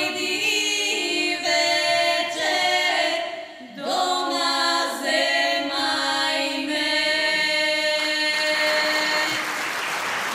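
Three women's voices singing a Macedonian folk song unaccompanied in close harmony, with long held notes, ending on a sustained final chord. Audience applause breaks out near the end as the chord dies away.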